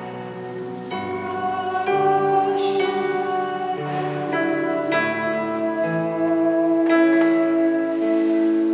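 A boy singing a slow hymn solo, holding long notes that change about once a second, with guitar accompaniment.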